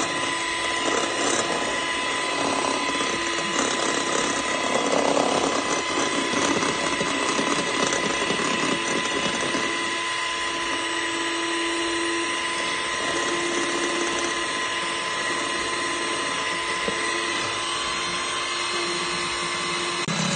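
Small electric hand mixer running steadily, its beaters whipping egg whites in a stainless steel bowl until they firm up for meringue: an even motor whine.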